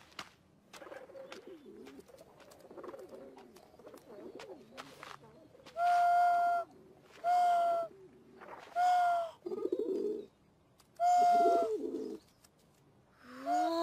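Pigeons cooing softly, then a series of steady hooting notes, each held under a second, blown through cupped hands as a call to the pigeons, with short low coos in between.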